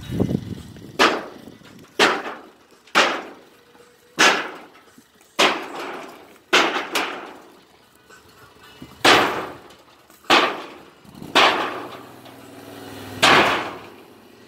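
Repeated hammer strikes on the old wood-and-tin shed, about eleven sharp blows roughly one a second with a short pause midway, each with a brief clanging ring.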